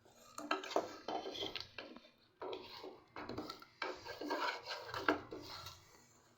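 A spoon or ladle stirring and scraping in a cooking pot of thick gravy, in a run of irregular scraping strokes.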